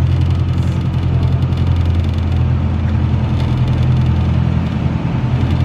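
Canal tour boat's engine running steadily, a low even drone.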